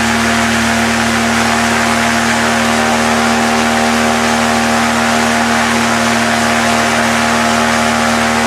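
Suzuki car engine of a motorized hang-glider trike running steadily at high revs, just under 5000 rpm, driving a Neuform propeller on a static thrust test while pulling about 140 kg of thrust. The pitch holds steady throughout.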